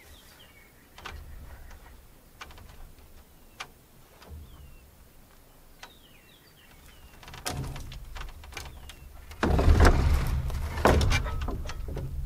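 A wooden roof truss being hauled up by rope: scattered knocks at first, then about nine and a half seconds in a loud stretch of scraping and knocking as the truss moves. Small birds chirp now and then.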